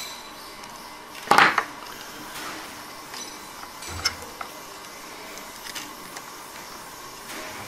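Light metallic clicks and clinks of thin wire and small tools being handled while wire is wound around a model tree trunk, with one louder short rattle a little over a second in.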